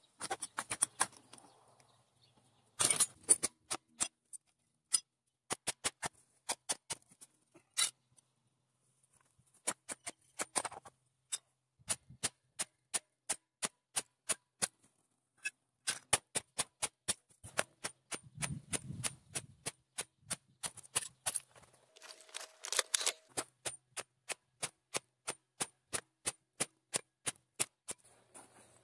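A long series of sharp clicks and taps. They come in irregular clusters at first, then settle about halfway into a steady run of about two to three a second.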